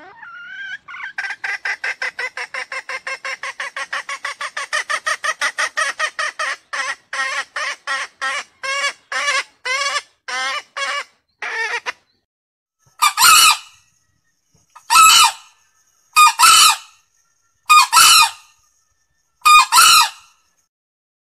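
Male green junglefowl lure call. First a long run of rapid clucks, about four a second, slowing to about two a second. Then five short, loud crows about a second and a half apart.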